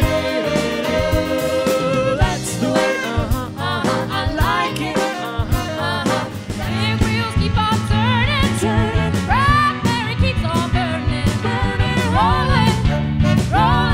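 Live band playing a pop-soul cover song: female voices singing with vibrato over electric bass guitar, drums and a horn section of saxophone and trumpet.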